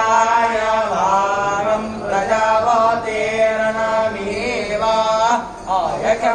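A voice chanting a devotional mantra in long, drawn-out held notes.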